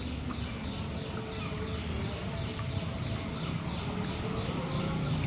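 A bird chirping over and over in short, high, falling notes, about three a second, over a steady low outdoor rumble.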